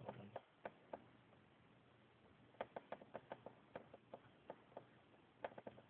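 Faint, irregular metallic clicking of a snake-hook pick and tension wrench working the pins inside a small lock. A few scattered clicks, then a denser run from about two and a half seconds in.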